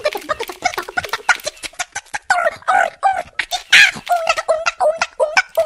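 Song instrumental with rapid, chopped high-pitched vocal sounds over a fast clicking beat, with no clear sung words.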